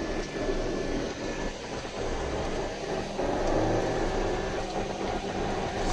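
Car running, heard from inside the cabin: a steady mix of engine and road noise.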